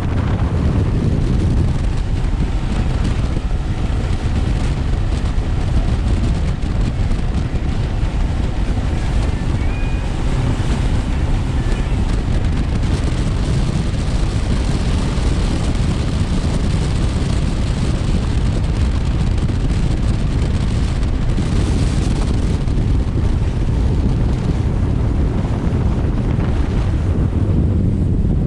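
Motorboat with twin Yamaha 150 outboards running steadily underway. Heavy wind buffets the microphone over the rush of water along the hull.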